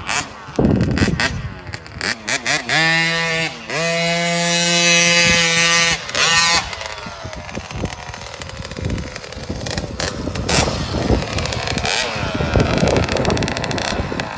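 KTM 50 two-stroke mini dirt bike engine revving up and held at high revs for about three seconds, then dropping off. Before and after, it runs more roughly as the bike rides around the track.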